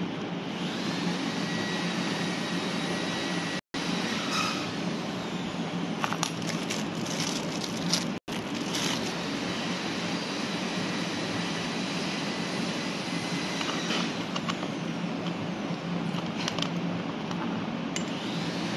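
Light metallic clicks and clinks of a folding hex-key multi-tool being handled, over steady workshop background noise with a low hum. The sound cuts out for a moment twice.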